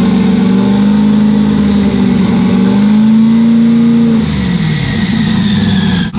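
Twin-turbo 427 V8 of a C5 Corvette drag car, held at raised revs from the throttle and then dropping back to idle about four seconds in. The engine has just been started after a head and turbo upgrade and runs well.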